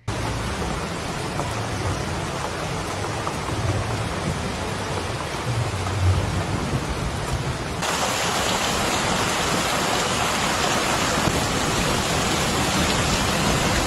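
Heavy rain pouring down, a steady hiss with a low rumble underneath. About eight seconds in it cuts abruptly to a louder, brighter rush of water.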